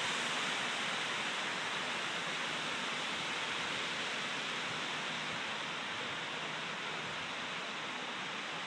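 Strong wind rushing through trees in a storm, a steady hiss that eases slightly over the few seconds.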